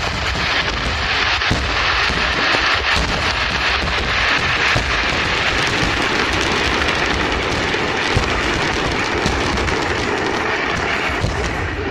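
A rapid-fire fireworks display: many shell bursts overlapping into a continuous crackle, with bangs scattered throughout and a steady level.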